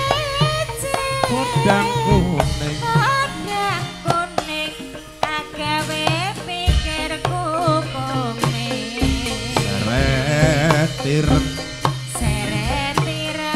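Amplified Javanese karawitan (gamelan) music: a woman sings ornamented, wavering lines into a microphone over steady drum strokes and sustained low instrument tones.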